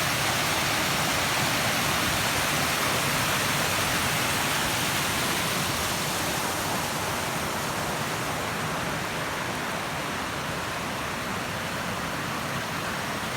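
Waterfall rushing steadily: a continuous hiss of falling water, easing slightly in level about halfway through.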